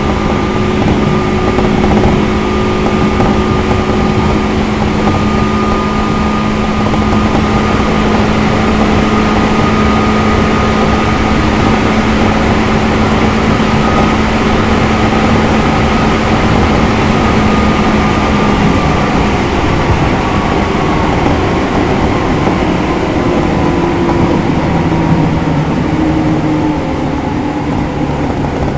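Inside a JR 205 series electric train running on the line: steady wheel-and-rail noise with a steady whine from the traction motors and gears. In the last few seconds the whine falls slightly in pitch.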